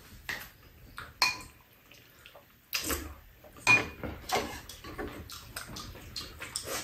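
Metal chopsticks clicking and tapping against dishes on a table, scattered irregular clinks, a few with a short ring, along with eating noises.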